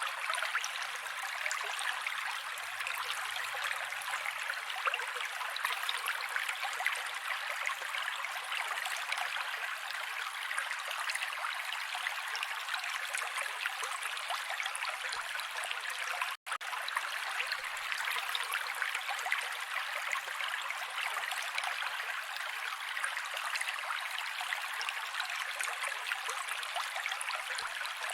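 Mountain creek running steadily over rocks, an even rushing and babbling of water with no low rumble. About halfway through it cuts out for a split second and resumes unchanged.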